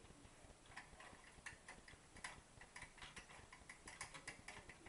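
Faint, irregular small metallic clicks as a truncated Allen wrench turns the backlash-adjustment screw on a Taig lathe's cross-slide drive nut, the screw just starting to bite.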